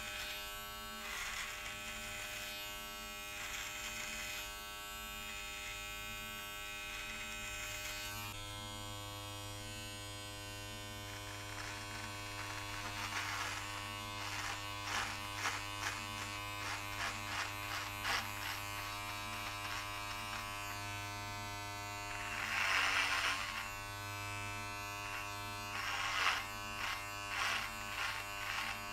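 Manspot body-hair (groin) trimmer buzzing steadily as it cuts beard hair. Short rasping strokes repeat quickly through the middle, with one longer, louder stretch of cutting about two-thirds through.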